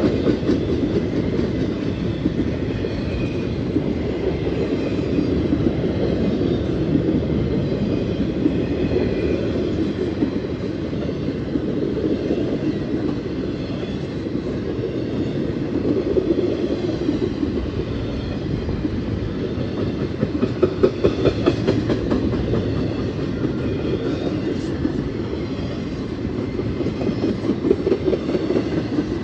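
Empty intermodal spine cars of a freight train rolling past: a steady rumble of steel wheels on rail, with rapid clickety-clack as trucks cross rail joints, loudest near the start, about two-thirds of the way in and near the end.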